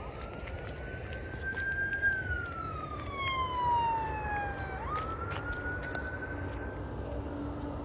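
Emergency vehicle siren on a slow wail. Its pitch rises for about two seconds, falls for nearly three, then jumps up and climbs again, over a steady low rush.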